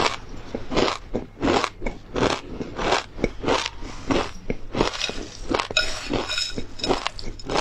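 Crunchy tartary buckwheat pepper crisp being chewed, crackling with each bite at about three crunches a second.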